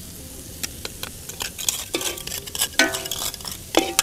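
Metal cookware being handled: a utensil clinks and scrapes against a steel pot or bowl in a string of sharp knocks, each leaving a short metallic ring. The knocks come more often and more loudly through the second half. A steady hiss runs underneath.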